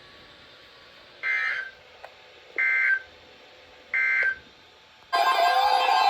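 Emergency Alert System end-of-message signal: three short, buzzy digital data bursts (SAME 'NNNN') about a second and a half apart, marking the end of the warning broadcast. Music starts about five seconds in.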